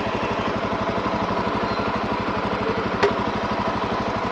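Motorcycle engine idling with an even, rapid low pulse, with one sharp click about three seconds in.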